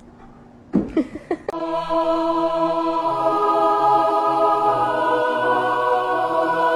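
Choir-like music of held, chanted voices that starts about a second and a half in, just after a brief cluster of short, loud sounds whose pitch bends up and down.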